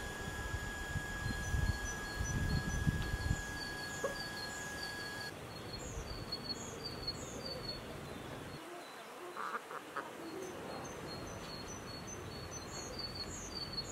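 Farmyard chickens feeding on scattered scraps on the ground, with short high bird chirps repeating throughout.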